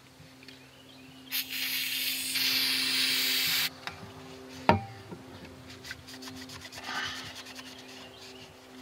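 Paper towel rubbing and wiping over the plastic vapor separator housing and its gasket face on an outboard motor. About a second in there is a steady hiss lasting about two seconds that starts and stops abruptly, then a single sharp click.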